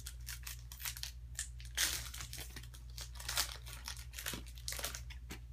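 Foil wrapper of a baseball card pack crinkling and crackling irregularly as it is handled and torn open.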